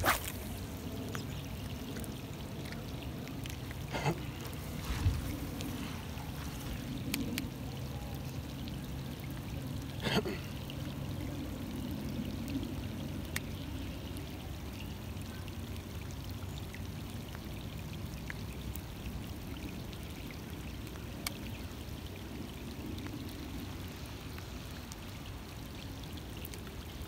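Steady patter of rain, with a few sharp knocks near the start and about ten seconds in.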